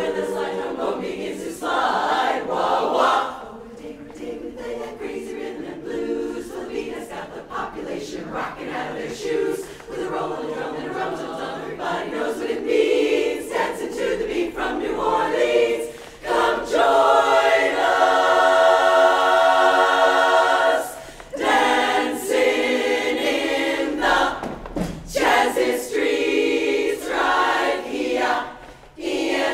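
Women's a cappella barbershop chorus singing an up-tempo song in close harmony, in short phrases with brief breaks between them and one long held chord about halfway through.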